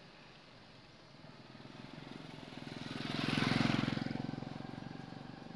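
A motor vehicle drives past, its engine growing louder to a peak about three and a half seconds in, then fading away.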